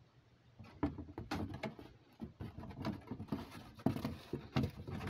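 Irregular rustles and knocks of packaged food items being handled in an open cardboard box, starting about a second in.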